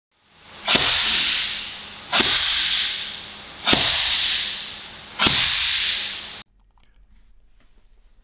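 Four sharp open-hand slaps into a vinyl strike shield, about one and a half seconds apart: backward groin-slap strikes. Each is followed by a loud hiss that fades before the next.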